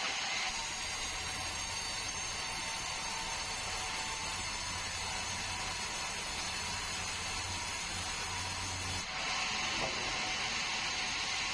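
Sawmill saw running through a bengkirai hardwood log: a steady mechanical hiss with a fine high whine and a low hum, its tone shifting about nine seconds in.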